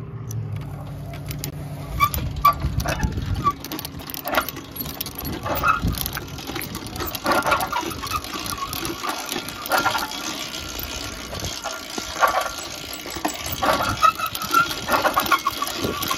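Motorized bicycle rolling along, its chain and loose parts rattling with irregular clicks and knocks. A low steady hum fades out in the first few seconds.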